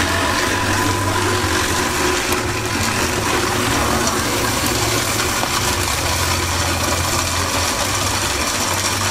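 An engine running steadily at idle: a low, even hum.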